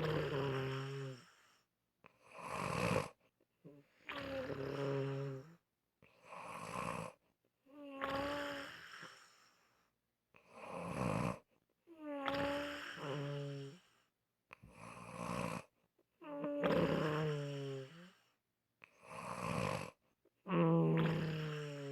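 Rhythmic snoring, a breath about every four seconds. Each breath is a short rasp followed by a longer snore with a low buzzing tone that wavers in pitch.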